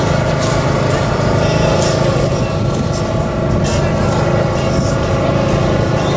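Garden pulling tractor's engine running steadily at the start line before a pull.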